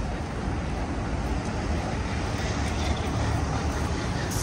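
Steady low rumble of background noise with no distinct event, and one short click near the end.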